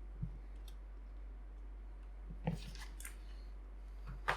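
Faint handling sounds of a keyboard being set down and moved on a desk: a few light knocks and rustles, with a sharper click near the end, over a steady low hum.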